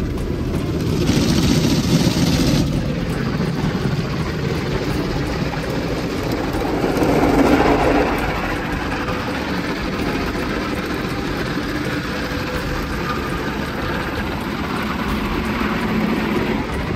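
Automatic car wash machinery heard from inside the car's cabin: rotating cloth brushes scrubbing over the body and windows amid water spray, making a heavy continuous rumble. A brief hiss comes a little over a second in, and the noise swells around seven to eight seconds in.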